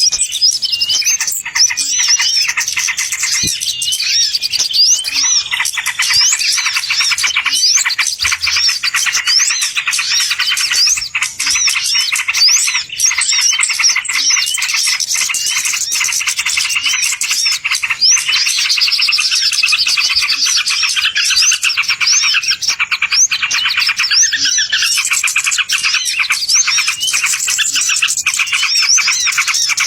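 Dense chorus of many small songbirds chirping and trilling at once, high-pitched and unbroken, as in a bird-lure (pikat) recording played to draw wild birds in.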